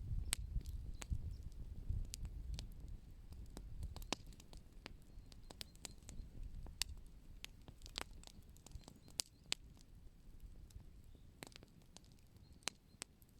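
Wood fire crackling: sharp, irregular pops and snaps, several a second at times, over a low rumble that fades away over the first half.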